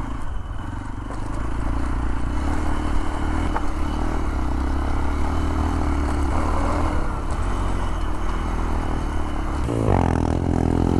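Hero Xpulse 200 4V single-cylinder engine running under way over a rough dirt track, with the rattle and scrape of the bike over bumpy ground. About ten seconds in, a second motorcycle's engine comes in close, its pitch rising and falling.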